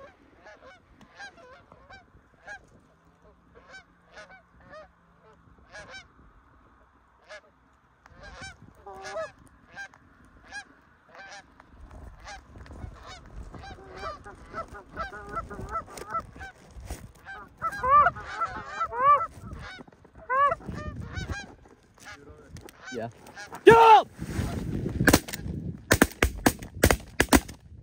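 Canada geese honking as a flock circles low overhead, the calls sparse at first and then growing louder and crowding together. Near the end comes a quick run of sharp cracks.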